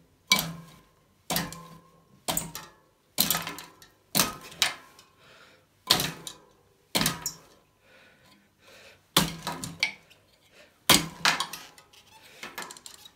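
A road bike's front end bounced repeatedly on the floor to mimic riding over bumps: a sharp knock with a brief rattle of the bike's parts, about once a second and sometimes doubled.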